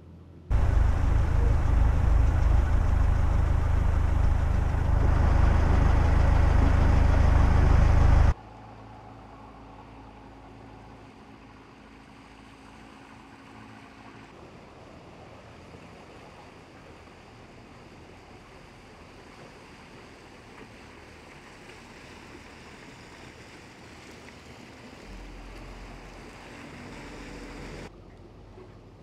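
Loud rushing, rumbling noise of wind and water for about eight seconds, then a sudden cut to a much quieter steady low hum of a boat engine under way on the river.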